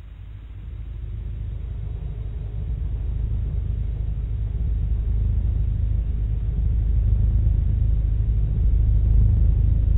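Deep, droning rumble of a dark ambient music track, fading in from silence and swelling steadily louder.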